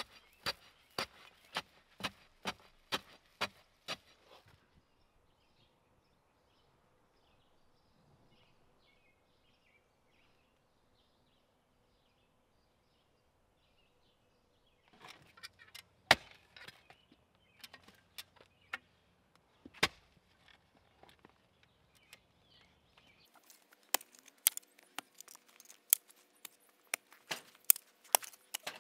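A run of sharp clicks, evenly spaced at about two or three a second, stops after about four seconds. After a quiet stretch of about ten seconds, irregular sharp taps start again and grow denser near the end.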